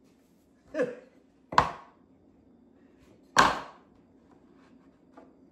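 Three short wooden knocks spread over a few seconds, the last the loudest: mitred wood trim strips being set down and pressed into place on a wooden cabinet door.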